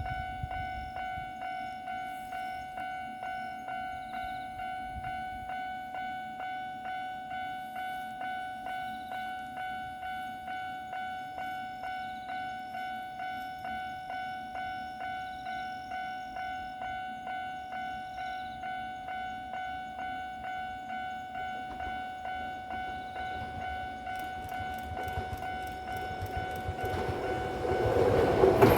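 Japanese level-crossing warning bell ringing in a steady, even rhythm of about two strikes a second, each strike with a ringing electronic tone. Over the last few seconds the rumble of the approaching Kyoto Municipal Subway 20 series electric train grows quickly louder.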